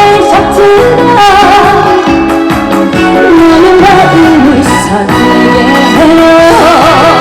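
Loud trot song played through a stage sound system: a backing track with a steady beat and a wavering lead melody line.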